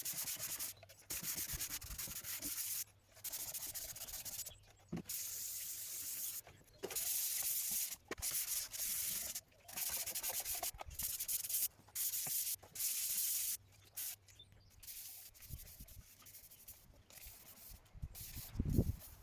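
Abrasive rubbing on a boat's hull, sanding or compound polishing, a noisy scraping that comes in stretches of one to two seconds with short breaks between them. It grows quieter in the last few seconds, with a low thud near the end.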